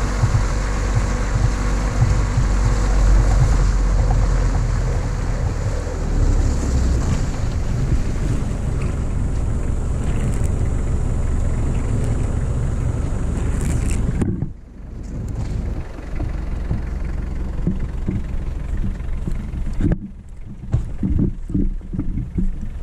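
Engine of a small off-road vehicle running steadily as it drives along a snowy track. About fourteen seconds in the sound drops away abruptly to a quieter rumble, and it falls again near the end.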